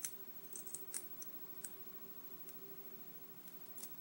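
Small metal tool clicking and tapping against the pin chambers of a Sargent lock cylinder while trying to work the springs out: a quick cluster of light sharp clicks in the first second and a half, then a few scattered ones.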